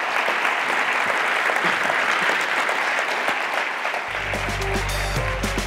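Audience applauding after a speech. About four seconds in, music with a steady low bass and a melody comes in as the clapping thins.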